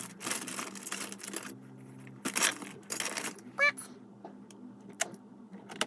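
Plastic Lego pieces clattering and clicking as they are handled: a run of sharp clicks and small rattles, busiest at the start and again two to three seconds in.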